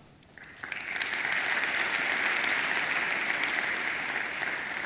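Audience applauding. The clapping starts about half a second in, holds steady, and tapers off near the end.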